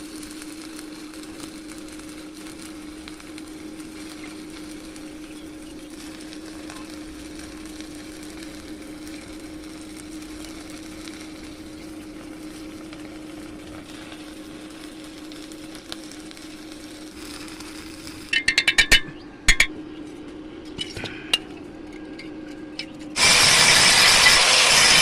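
Refrigerator compressor running with a steady hum. A quick run of sharp clicks comes about three-quarters of the way in, and a loud rushing hiss starts near the end.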